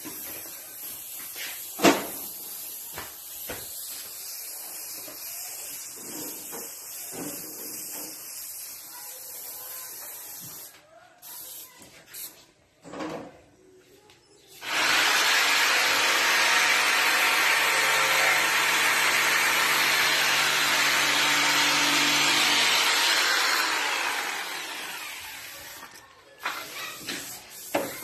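A machine running with a loud steady hiss over a faint low hum for about nine seconds, then fading out; before it, quieter knocks and handling noises, with one sharp knock about two seconds in.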